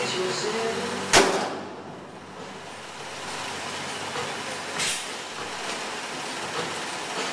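Building-site noise in a steel-framed shell: a sharp bang about a second in, then a short hiss near five seconds, over a steady rumbling background.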